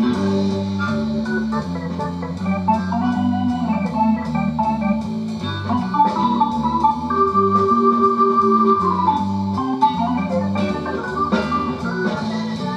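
Recorded organ music with a bass line and held chords, played back through a 1970s wooden-cabinet speaker with a Magnavox driver, driven by a JLH 1969 class A amplifier clone, sounding clean.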